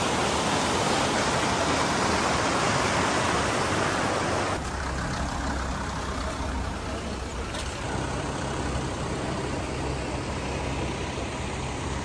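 Fast-flowing mountain river rushing white over rocks, a loud steady noise. It changes abruptly twice, about four and a half and eight seconds in, with more low rumble after the first change.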